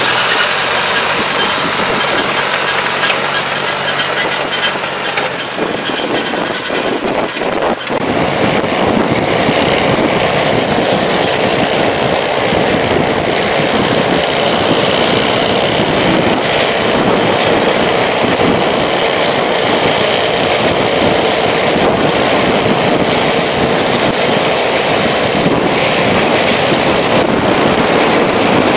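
A half-tracked tractor's engine running as it tows a round baler. About eight seconds in, this gives way to steady, loud wind and road noise from a camera on a car's hood following the baler.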